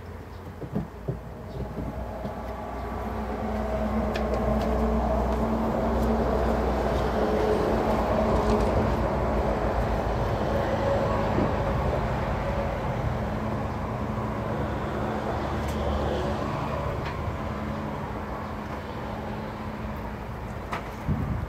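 A swarm of honeybees flying and buzzing around the hives in a steady hum, while a large vehicle passes behind the fence, its low rumble swelling up after a few seconds and fading out after the middle. A sharp knock sounds near the start and another near the end.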